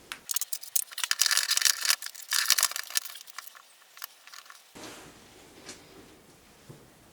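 Rapid metallic clicking and scraping as metal parts of an X2 mini mill are handled and slid into place, the head assembly going onto the Z-axis column with its gib. This runs for about four and a half seconds, then only a few faint ticks follow.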